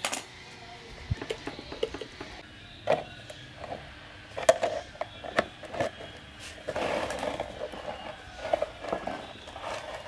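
Plastic fan parts being handled and fitted together: scattered clicks and knocks, with a stretch of scraping and rubbing as the rear motor housing is slid over the motor shaft.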